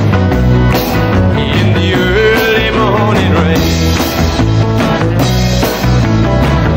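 A country-rock / rockabilly band playing with a steady beat, with sliding lead lines over the band.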